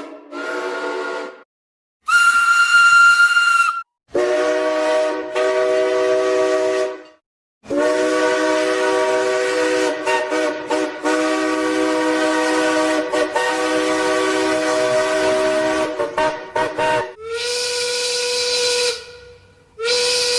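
A string of cartoon steam-train whistle sound effects, about six separate blasts cut together with abrupt stops. Most are chords of several notes over a steam hiss, one near the start is a single high note, and the longest is held about nine seconds with brief breaks.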